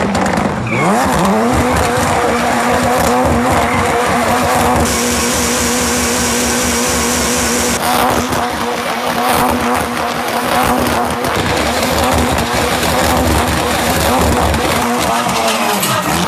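Ford Fiesta rally car spinning donuts at high revs, its tyres squealing and skidding. The engine revs up about a second in and then holds a steady high note, with a sharper tyre shriek in the middle.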